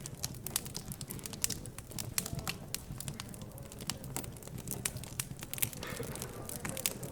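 Wood fire crackling, with many irregular sharp pops and snaps over a low hum of background chatter.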